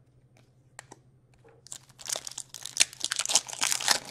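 Foil wrapper of a hockey trading-card pack being torn open and crinkled by hand, a dense crackle starting about halfway in, after a couple of faint clicks.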